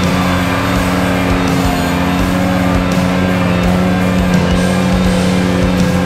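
Ventrac 4500 compact tractor's engine running at a steady pitch as it drives across soft ground, mixed with background rock music.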